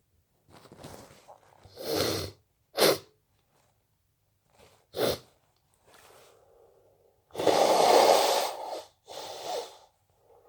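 A person sniffling: several short, sharp sniffs in the first half, then a long, loud nose blow lasting about a second and a half starting about seven seconds in, followed by a shorter second blow.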